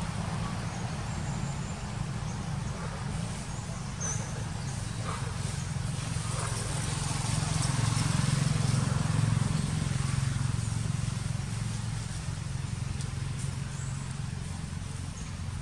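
A motor engine running steadily with a low hum that grows louder about halfway through, then eases off.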